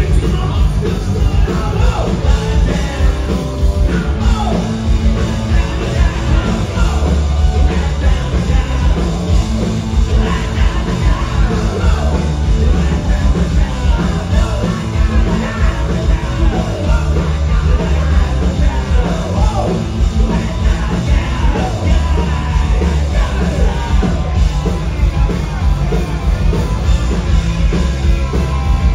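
Live punk rock band playing loud and without a break: electric guitar and bass, with shouted vocals.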